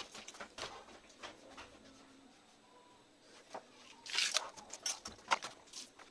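Faint crackling and rustling of broken eggshell as hard-boiled eggs are peeled by hand over a steel plate, with a short run of louder crackles about four seconds in.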